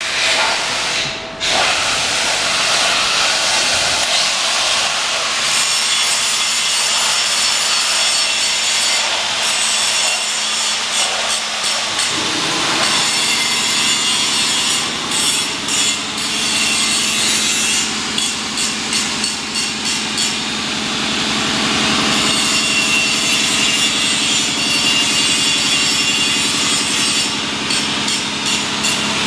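A loud rasping, hissing noise, with no engine note under it at first. About twelve seconds in, the BMW R1100RT's air/oil-cooled boxer twin starts and idles steadily under the hiss.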